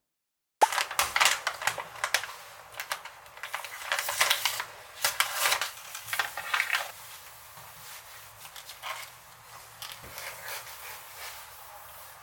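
A rapid, irregular series of sharp clicks, taps and clatters of hard objects, starting suddenly about half a second in, busiest over the first six or seven seconds and then thinning out.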